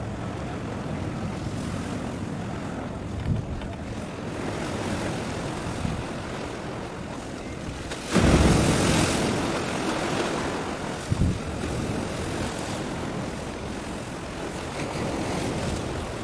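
Wind buffeting an outdoor microphone over a steady wash of sea noise, with a strong gust about halfway through.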